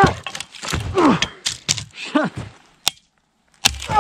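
A man groaning and grunting with effort, three straining groans that fall in pitch, about a second apart, as he hangs his weight on a pole axe's bent steel handle. Short sharp knocks come in between.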